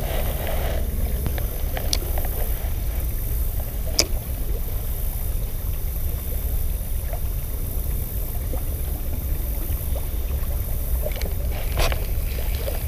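Steady rushing of river water, with a few short, sharp clicks or splashes.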